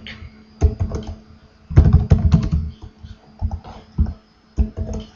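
Typing on a computer keyboard: irregular clusters of key clicks with short pauses between them, over a faint steady hum.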